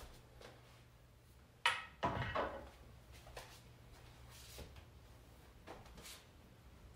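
A sharp knock about one and a half seconds in, followed by a short clattering rattle that dies away within about half a second. Fainter soft knocks of handling follow.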